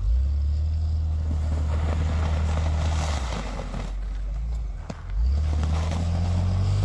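Off-road 4x4's engine revving under load as it is driven forward and back in soft snow to get unstuck. It pulls hard for about three seconds, eases off, then pulls again from about five seconds in, the note rising slightly near the end.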